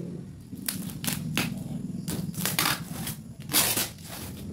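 Packing tape on a cardboard box being slit with a knife and ripped loose: a string of short, scratchy rips and scrapes, about half a dozen, the loudest a little before the end.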